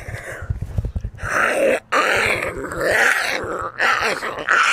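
A man growling and groaning in a rough, gravelly voice, making several drawn-out growls one after another.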